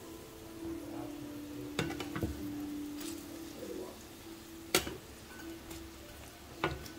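Saba banana fritters in batter sizzling in a nonstick frying pan, with a few sharp clicks of a spatula against the pan.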